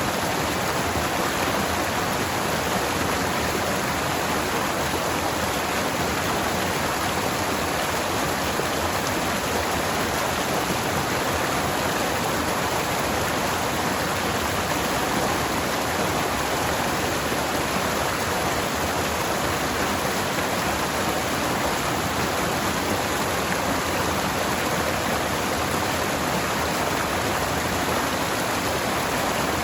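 Forest stream flowing over rocks: a steady rush of water that stays the same level throughout.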